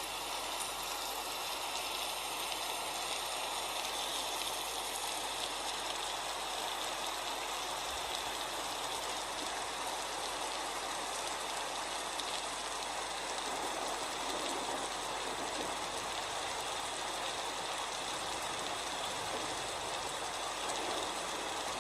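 Waterfall: water pouring and splashing in a steady rush.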